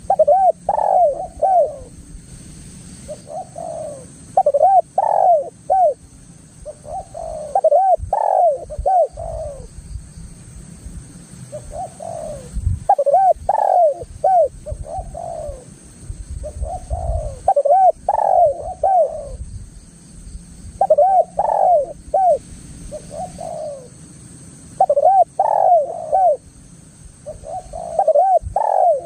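Spotted dove (tekukur) cooing, a wild bird's call: a phrase of several short, rising-and-falling coos that repeats about every four seconds. A low rumble runs underneath.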